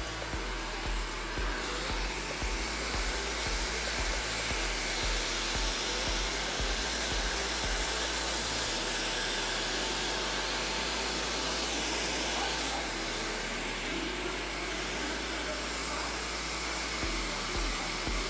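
Handheld hair dryer blowing steadily on a client's hair.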